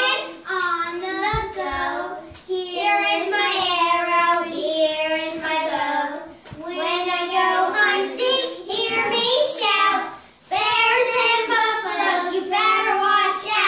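Children's voices singing a song together in sung phrases with short pauses between them.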